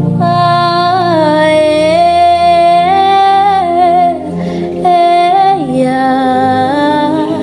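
A woman singing long wordless vowels, 'ah' and 'eh', gliding between held notes with a slight waver, over a soft sustained instrumental backing. The voice breaks off briefly about four seconds in.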